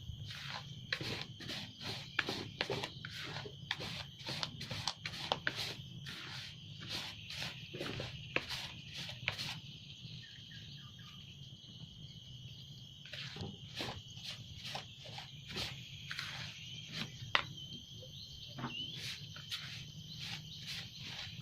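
Steady chirring of insects, like crickets, over a low hum, with frequent irregular clicks and taps close by that pause briefly in the middle.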